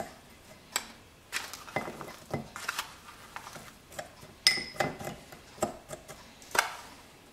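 Metal spoon scooping brown sugar out of a plastic tub and knocking and scraping against a small ceramic bowl: irregular light clinks, some ringing briefly, the sharpest about four and a half seconds in.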